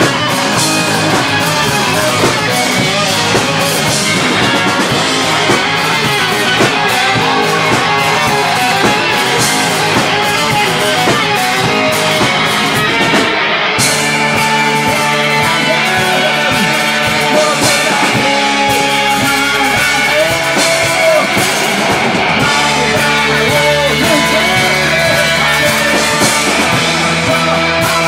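Rock band playing live: electric guitar, bass and drum kit. About halfway through, the band moves into a new section with steady held bass notes under bending guitar lines.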